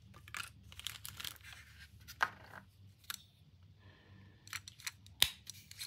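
Handling noises: paper wrapping rustling and crinkling, with small plastic clicks from the digital caliper being handled and one sharp click about five seconds in.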